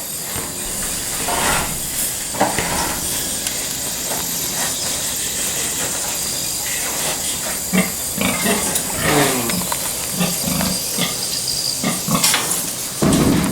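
Hogs grunting now and then over a steady high-pitched hiss of insects, with a louder noisy burst near the end.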